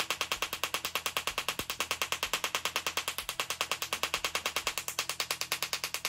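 Small tabletop Tesla coil discharging from its wire electrode: a rapid, even crackling buzz of about a dozen snaps a second.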